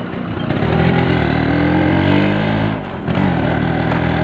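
Yamaha RX135's two-stroke single-cylinder engine under way, its revs rising for about two seconds. The engine note drops off briefly about three seconds in, then picks up again.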